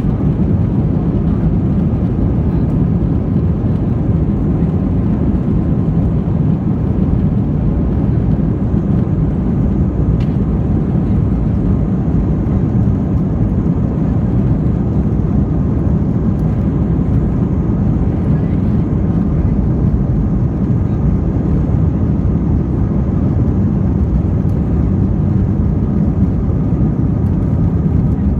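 Steady jet-engine and rolling rumble of an airliner moving on the ground, heard from inside the passenger cabin, with most of the sound deep and low and no rise or change.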